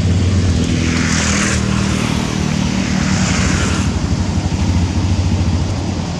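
An engine running with a low, steady drone. Two brief hissing swells rise over it about a second in and again about three seconds in.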